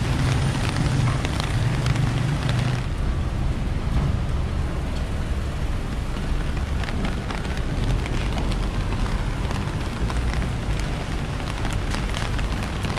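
Rain-soaked city street: a steady wash of rain and tyres hissing on wet pavement over a low traffic rumble, with scattered raindrop ticks. The hiss is louder for the first three seconds or so while cars pass, then eases.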